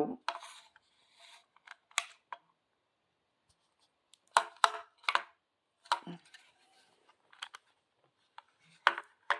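Handling noise from a plastic EMF meter being pressed and moved on a granite countertop: a string of sharp, unevenly spaced clicks and taps with soft rubbing between them.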